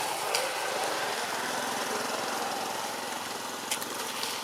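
A small engine running steadily, with a few sharp clicks.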